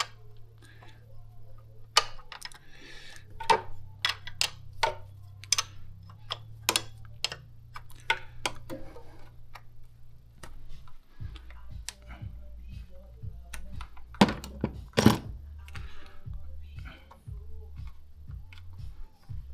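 Hand tools working on engine-bay parts: irregular sharp metal clicks and taps, with a couple of louder knocks about three-quarters of the way through.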